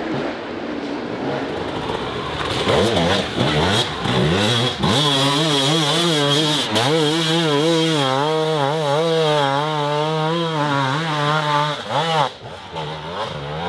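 Husqvarna hard enduro dirt bike engine revving hard under the rider's throttle: the revs climb a few times in the first seconds, then rise and fall rapidly as the rear wheel fights for grip on the climb. Near the end the revs drop off.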